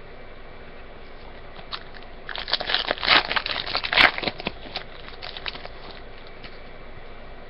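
Trading-card pack wrapper crinkling and tearing open as it is handled, in a burst of about two seconds a couple of seconds in, followed by a few light clicks and rustles.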